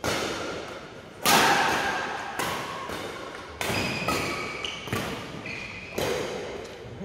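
Badminton rackets striking a shuttlecock in a rally: about seven sharp hits roughly a second apart, echoing in the hall, the loudest just over a second in. Short shoe squeaks on the court come between the hits.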